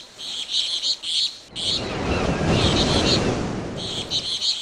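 Birds chirping in quick repeated bursts. A low rumbling noise swells in about a second and a half in and runs on beneath the chirps.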